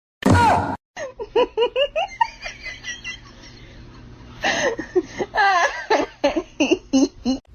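A person laughing in repeated short bursts, in two runs. A loud, short sound comes right at the start.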